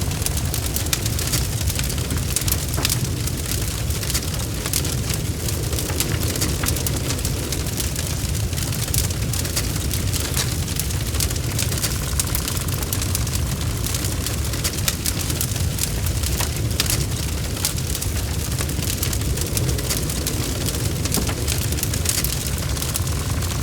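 Wood fire burning in a fireplace: many quick crackles and pops over a steady low rumble of the flames.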